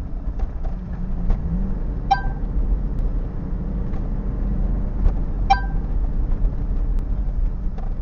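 Car cabin rumble of engine and tyres while driving, picked up by the dashcam's built-in microphone. There are a few light ticks and two sharper clicks about three seconds apart.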